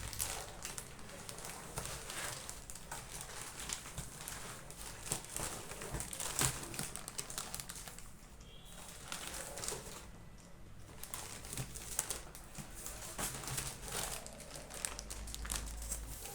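Packaging crinkling and rustling in irregular bursts as a box of books is unpacked and handled, easing off briefly about two-thirds of the way through.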